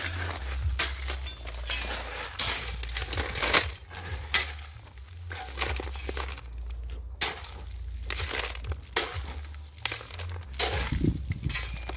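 Shovels digging into a pile of gravel and tipping it into a wheelbarrow: irregular gritty scrapes and clattering stones, stroke after stroke.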